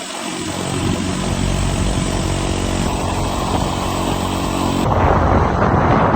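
Motorcycle engine running at a steady speed under road noise; about five seconds in, the engine tone fades under a louder, even rushing noise.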